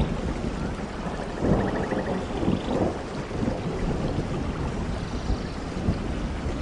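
Steady heavy rain with rolling thunder; the thunder rumble swells about one and a half seconds in.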